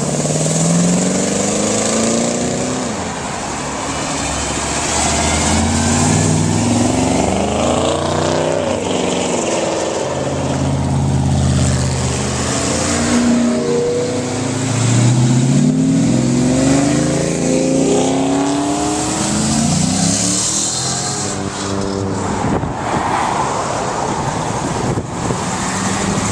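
A car engine revving again and again, its pitch climbing and dropping back every few seconds.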